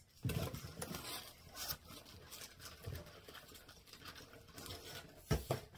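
Rustling and crackling of cross-stitch charts in clear plastic bags and of the cardboard shipping box as they are handled and sorted, with two louder knocks a little past five seconds in.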